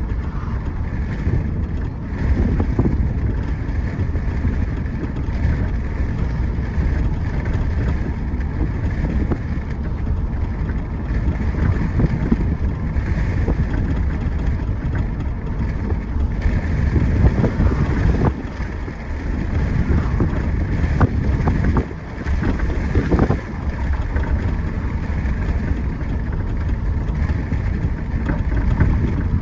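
A 2011 Audi A5 Quattro driving, with steady road and tyre rumble and some wind noise. A few short sharp knocks are scattered through it.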